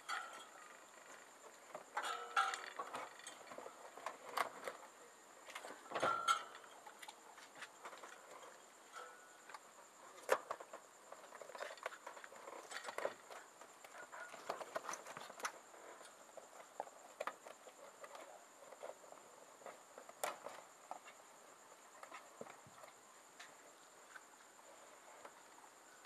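Scattered light taps, clicks and rustling of hands handling parts and material in a car's rear compartment, over a steady high-pitched chirping of crickets.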